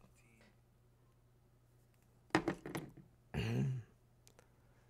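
A man's brief mouth clicks, about two and a half seconds in, then a short wordless voiced sound, like a murmur or hum, close to the microphone about a second later, over a faint steady low hum.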